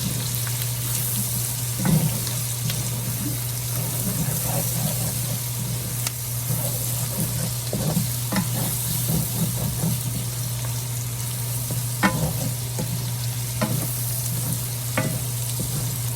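Onions and red bell pepper strips sizzling as they sauté in a hot pan, with a spatula stirring and knocking against the pan now and then. A steady low hum runs underneath.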